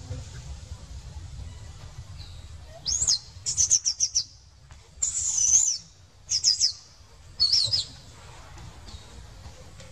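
A run of high-pitched animal calls: several quick sweeping chirps and one longer arching call. They start about three seconds in and stop near eight seconds. A low rumble runs under the first few seconds.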